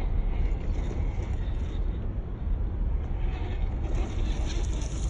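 Small electric RC crawler truck driving over rock: a noisy rasp of motor, gears and tyres, louder and higher about three and a half seconds in, under a heavy low rumble of wind on the microphone.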